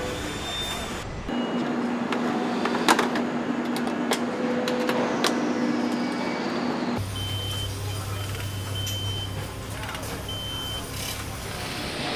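Motorcycle factory floor noise: machinery running with a steady hum and several sharp metal clanks, changing abruptly between shots. In the later part, short high electronic beeps sound over a low hum.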